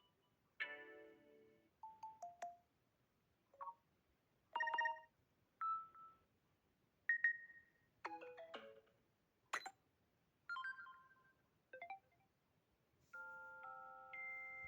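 Samsung Galaxy A52 notification sounds played one after another: a string of about a dozen short electronic chimes and blips, each under a second, with short gaps between them. Near the end comes a longer held chord.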